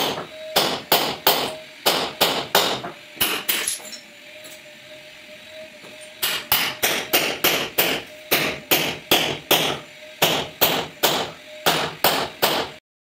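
Hammer blows breaking up a concrete floor slab, a sharp crack with each strike. They come in quick runs of about three a second, pause for about two seconds in the middle, then start again and stop suddenly near the end.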